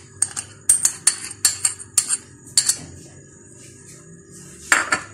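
A metal spoon scraping and clinking against a glass bowl several times, scooping soft ghee out into flour, followed by a single louder click near the end.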